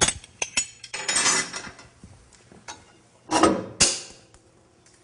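Metal clicks and clanks of a bandsaw fence and its rail being unbolted and handled. There are a few sharp clicks at the start and a rasping stretch about a second in, then two heavy clunks a little past three seconds.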